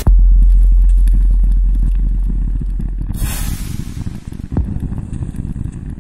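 Electronic dance-score sound design: a deep bass drone hits suddenly and slowly fades over a few seconds under a crackling texture, with a hissing noise swell about three seconds in and a sharp click shortly after.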